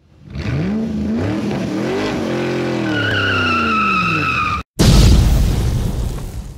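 A car engine revving up and down, then tyres squealing for over a second, then a brief cut to silence and a loud crash that dies away over about two seconds.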